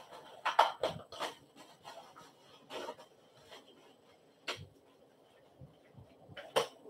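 Plastic packaging wrap rustling and crinkling in short, separate bursts as a long wrapped bassinet stand part is handled and the wrap is pulled at; the loudest bursts come about half a second and one second in.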